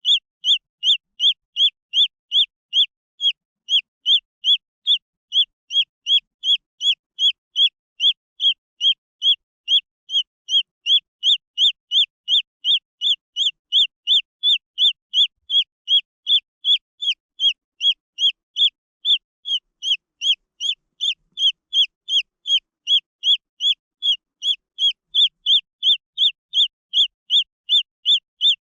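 Green junglefowl chick peeping without pause: short, high, slightly falling peeps in an even rhythm of about two and a half a second.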